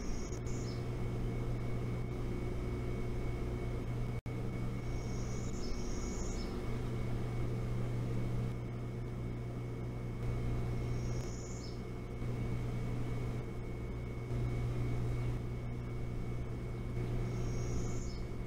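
A low mechanical drone that swells and eases every second or two, with a faint steady high whine above it. A small bird gives a short, high chirp four times, about six seconds apart. The sound cuts out for an instant about four seconds in.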